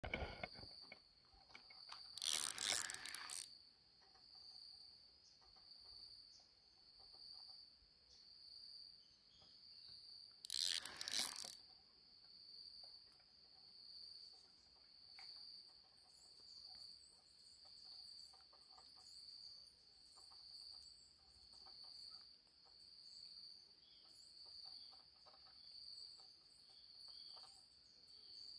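An insect calling with a steady high-pitched buzz that swells and fades about every one and a half seconds. Two loud noises, each about a second long, break in around two and ten seconds in.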